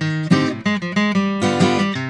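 Acoustic guitar strummed in a steady rhythm of chords, several strokes a second.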